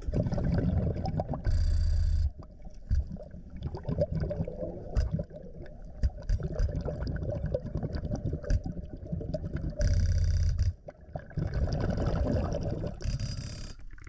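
Underwater sound of a scuba diver working the bottom: a steady crackle of small clicks and knocks from handling gear on gravel, broken by loud hissing breaths through the regulator about two seconds in and about ten seconds in, and a shorter one near the end.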